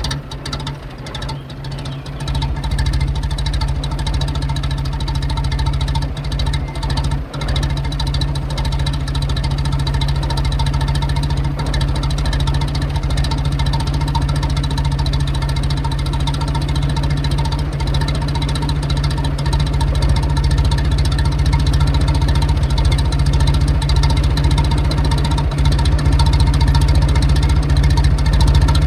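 1922 Morris Bullnose's 11.9 HP four-cylinder side-valve Hotchkiss engine heard from the exhaust end, running unevenly just after starting, then settling about two seconds in into a steady tickover, with two brief stumbles around six and seven seconds.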